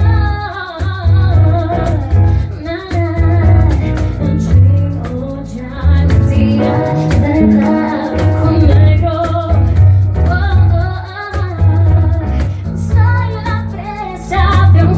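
Live acoustic pop performance: a woman sings the melody into a microphone over strummed acoustic guitar and a steady, heavy low bass line.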